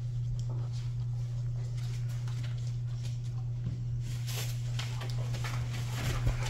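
Rottweiler puppies' paws and claws tapping and scuffing on a rubber floor mat and wooden floor, busier in the second half. A steady low hum runs underneath.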